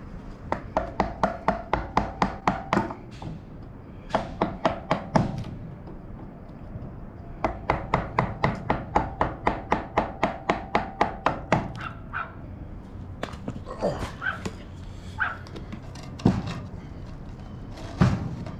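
Wooden mallet striking a wood chisel to chisel a weathered board: three quick runs of sharp knocks, about five a second, followed by a few separate knocks near the end.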